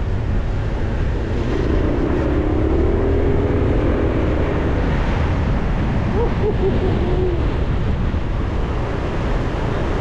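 Car on the move, heard from inside: a steady low road and wind rumble. A faint wavering tone comes and goes over it in the first seven seconds.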